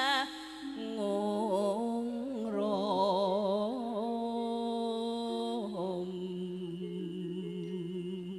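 Javanese langgam singing: a voice holds long notes with a wide vibrato and slow ornamental turns, the pitch stepping down to a lower held note about six seconds in.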